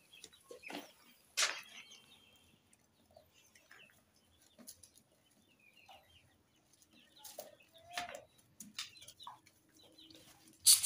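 Scattered short animal noises and scuffles, with a sharp louder sound about a second and a half in and another right at the end.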